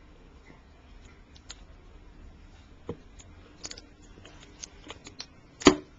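Scattered light clicks and taps, with a single knock about three seconds in and a louder knock near the end.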